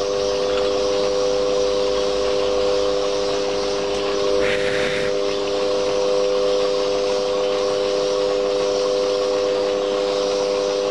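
Metal lathe running a fly cutter, facing a cast-iron cylinder casting to length: a steady whine of the motor and gearing over a constant hiss. About four and a half seconds in there is a brief, harsher scraping sound.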